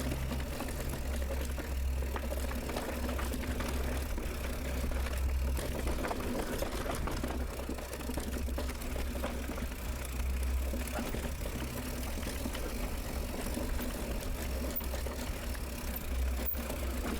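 Mountain bike riding down a trail, with wind buffeting the microphone in a low rumble that swells and eases, over a steady rattle and rush of riding noise.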